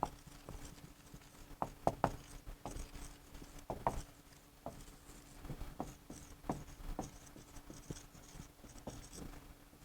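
Writing by hand: irregular light taps and short scratches of a pen on a writing surface, a few strokes a second with brief gaps, over a faint steady electrical hum.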